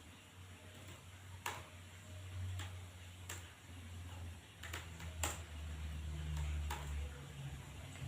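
Computer keyboard keys being typed, about eight sharp clicks at an irregular, unhurried pace, over a low hum that grows louder halfway through.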